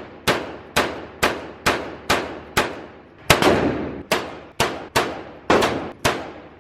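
Glock 44 .22 LR pistol fired in a steady string of single shots, about two a second, each crack followed by a short echoing tail.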